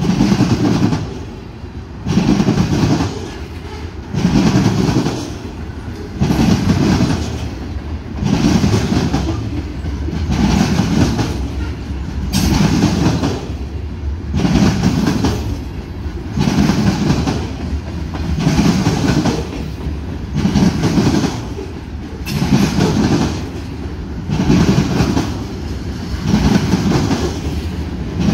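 Freight train of covered hopper cars rolling past at close range, the steel wheels clattering on the rails. The wheel noise swells about every two seconds as each pair of wheel trucks goes by.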